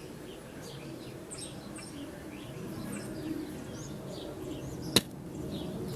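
Small birds chirping and twittering over a low steady background, with one sharp click about five seconds in.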